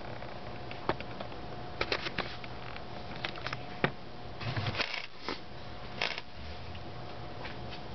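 Scattered light clicks and rustles, bunched in a few short clusters, over a steady faint hum.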